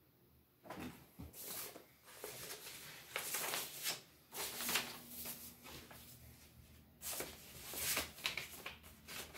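Paper and cardboard rustling and sliding in irregular bursts, starting about a second in: vinyl record sleeves and album jackets being handled.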